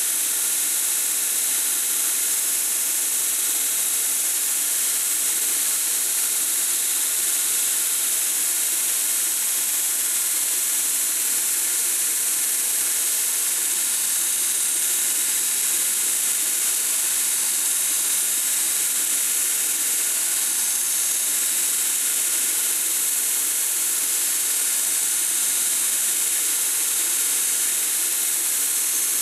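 Belt grinder running steadily, its abrasive belt hissing as a hand-held steel graver blank is ground against it, throwing sparks.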